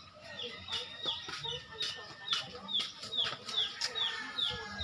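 A chicken calling over and over, short high calls that each fall in pitch, about two to three a second.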